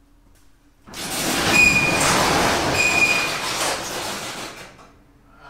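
Storage unit's steel roll-up door being pushed up, a loud metal rattle of about four seconds with two short high squeals.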